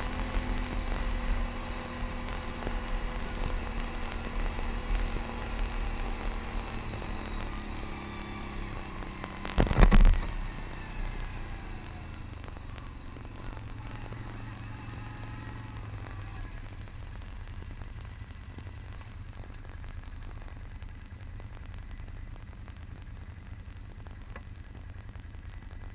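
CanAm Outlander ATV engine running as the quad rolls along a gravel trail, its pitch sinking gently as it slows. A brief loud rumbling thump about ten seconds in, then the ATV engines idle at a low, steady level after stopping.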